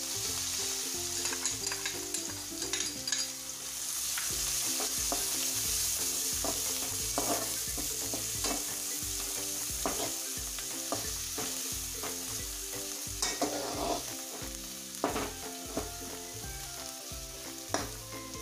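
Chopped onions sizzling in hot oil in a steel kadhai, with a metal ladle scraping and knocking against the pan at irregular intervals as they are stirred and sautéed.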